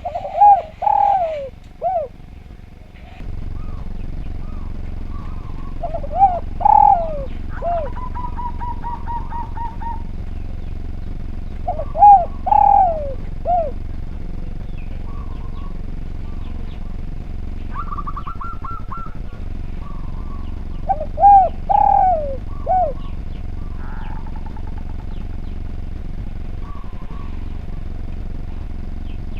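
Spotted dove (derkuku) cooing its phrase of a few notes, four times, each phrase about two seconds long.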